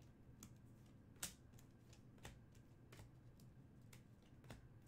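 Faint, irregular clicks and slides of chrome trading cards being flipped through one at a time in hand, about eight small taps with the sharpest one about a second in.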